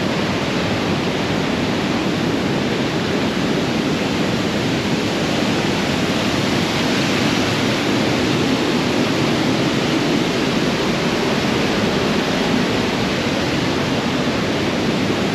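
Waterfall cascading over rock ledges, a steady rushing of water with no change in level.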